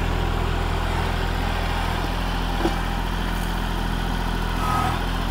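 A vehicle engine idling steadily, a constant low hum with no revving.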